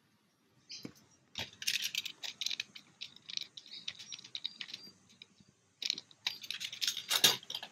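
Thin vinyl of an inflatable pool float crinkling and crackling as it is handled, in two spells of quick clicks and rustle, the second, near the end, the louder.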